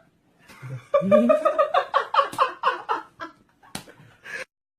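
A man laughing in a run of quick ha-ha pulses, dying down into a few short snickers and cut off abruptly near the end.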